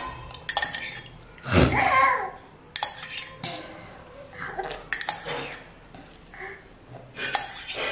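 A cup clinking several times as it is handled and held to a baby's mouth for a drink, with a longer, louder burst of sound about a second and a half in.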